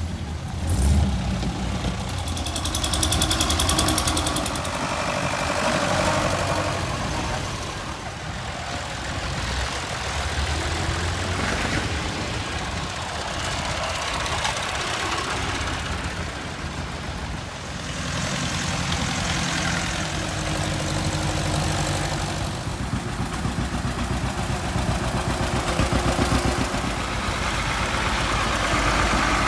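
A procession of farm tractors driving slowly past one after another, their engines running at low speed, each swelling and fading as it passes.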